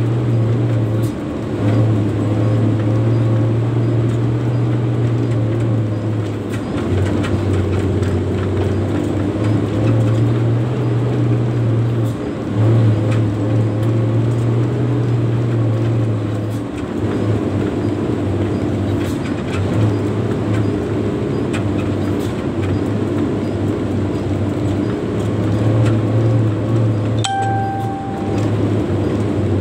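Hino 260 JD dump truck's six-cylinder diesel engine running under load, heard from inside the cab while driving on a gravel haul road, its drone easing off and picking up again several times, with cab rattles and clicks. A short beep sounds once near the end.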